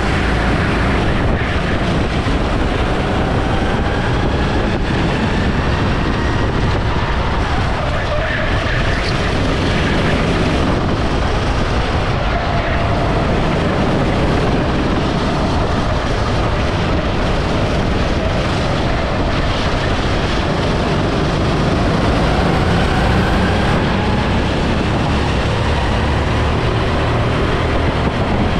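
Go-kart engine heard from the driver's seat at race pace over a heavy rush of wind noise. Its pitch drops as the kart slows for a corner and then climbs again as it accelerates onto the straight.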